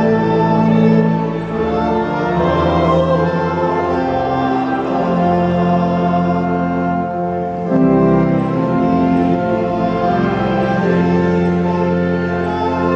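Organ music playing slow, long-held chords that change every few seconds.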